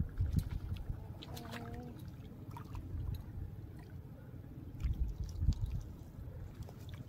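Shallow river water lapping and sloshing as a hand net on a rope is drawn through it along a muddy bank, under a low rumble that swells just after the start and again about five seconds in. A short faint pitched tone sounds about a second and a half in.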